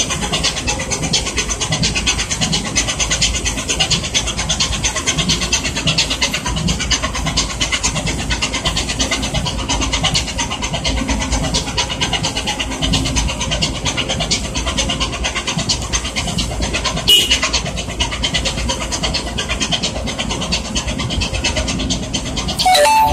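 A cargo ship's diesel engine running steadily as the ship pulls away under power, with a fast, even clatter over a low hum. A short higher-pitched call sounds near the end.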